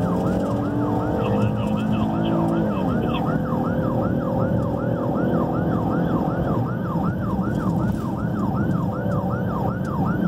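Emergency vehicle's electronic siren on a fast yelp, about three quick rise-and-fall sweeps a second, heard from inside the responding vehicle over its engine and road noise.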